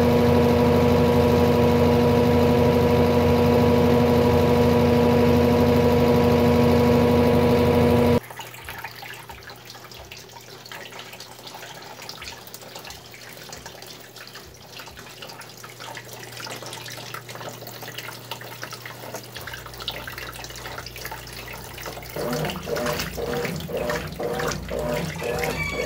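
Brastemp BWT12 top-load washing machine spinning its basket with a loud, steady motor hum that cuts off abruptly about eight seconds in. Then comes a much quieter wash of running water in the tub. Near the end the agitator starts, churning the clothes through the water in a regular rhythm.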